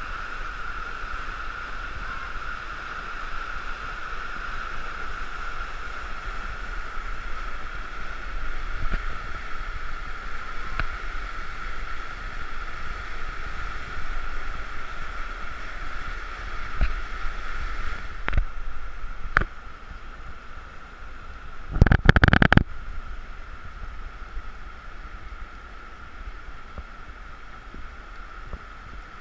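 Steady rushing of a flooded whitewater river through rapids, with low wind rumble on the microphone. A few sharp clicks come late on, then a brief loud crackling burst about 22 seconds in.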